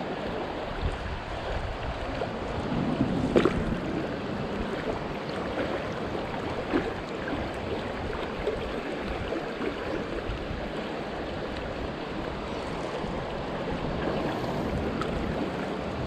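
Shallow rocky stream running in a riffle, a steady rush of water, with a brief louder knock or splash about three seconds in.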